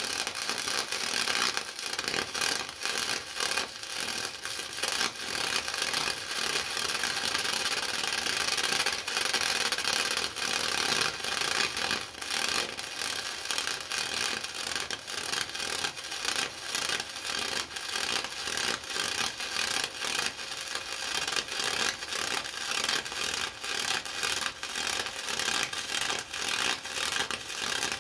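Flux-core arc welding with 0.035 wire: the continuous sputtering crackle of the arc as a long bead is run.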